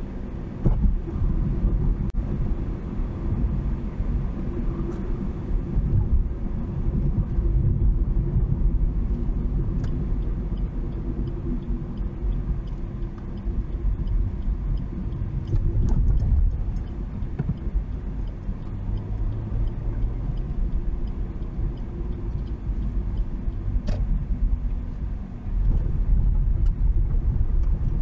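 Steady low rumble of a vehicle driving along a highway, engine and road noise rising and easing slightly in level.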